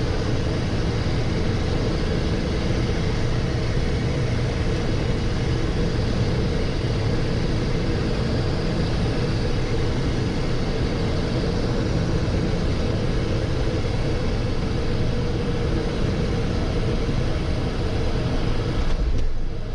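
Steady cabin noise of a Cessna Citation XLS twin-turbofan business jet heard from the cockpit: a constant low rumble with a hiss over it. It changes abruptly near the end.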